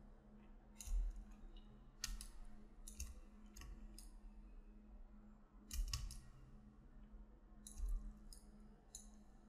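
Computer mouse clicking: about a dozen sharp clicks at uneven intervals, some in quick pairs, over a faint steady hum.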